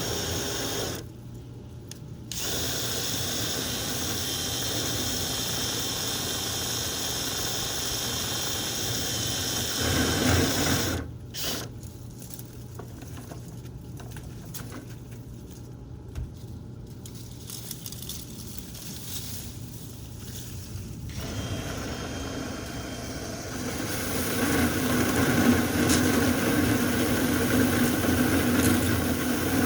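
Power drill spinning a rotary dryer-vent cleaning brush inside the duct, over the steady hum of the running dryer. The drill drops out briefly about a second in and goes quieter for about ten seconds midway, then runs louder near the end.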